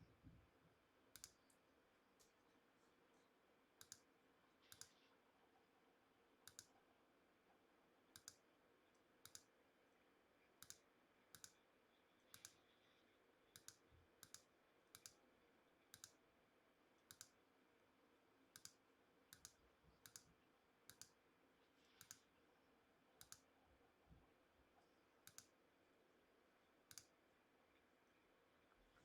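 Faint, irregular clicking of a computer mouse and keyboard, roughly one click a second, over near-silent room tone.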